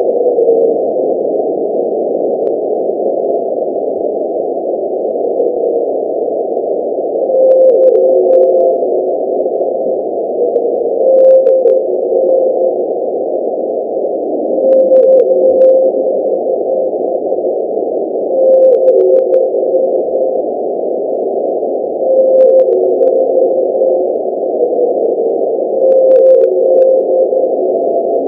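Blue whale call sound effect: a steady rushing drone with a moaning tone that swells and dips in pitch about every four seconds.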